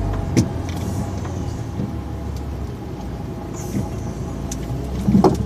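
Truck engine running low and steady, heard inside the cab as the lorry creeps forward at walking pace, with a few short clicks, the loudest near the end.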